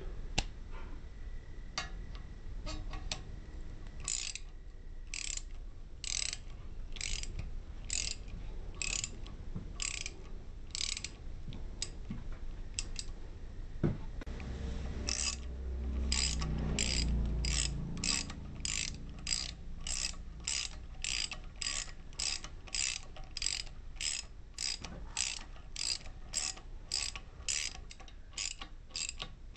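A 1/2-inch drive ratchet with a long extension and 3/4-inch socket clicking in short bursts, one for each back-swing, as it runs down a 1/2-13 mounting bolt. The strokes come slowly at first and then at about two a second, with a low rumble partway through.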